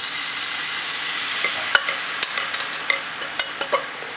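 Chicken stock sizzling as it hits a hot frying pan with cream, the hiss slowly easing. From about a second and a half in, a utensil clicks sharply against the pan several times.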